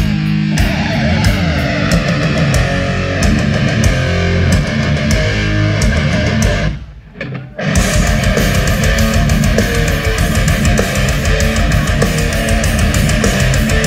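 Live death metal band playing an instrumental: heavily distorted electric guitars, bass and drums. About seven seconds in the band stops for under a second, then comes back in with fast, driving drumming.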